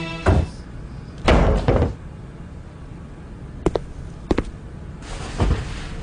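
A few separate thuds and clicks: a thud at the start, a louder, longer thud about a second in, two sharp clicks near the middle and another thud near the end.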